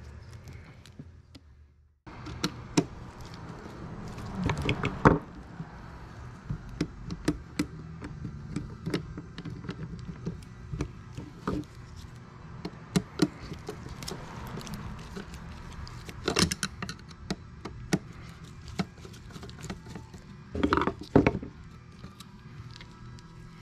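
Scattered clicks, taps and clinks of hand tools and small metal parts as a seat belt retractor unit is taken apart. There are short runs of rattling about five seconds in and again near the end.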